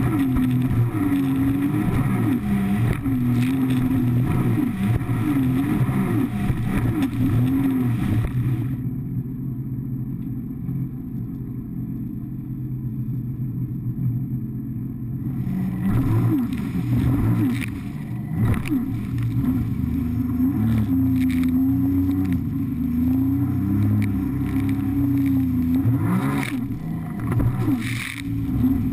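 Sea-Doo personal watercraft engine running hard, its pitch rising and falling with the throttle as the craft crosses waves, over a rush of water. For several seconds near the middle the sound turns muffled and quieter. In the second half, spray slaps and splashes hit the bow.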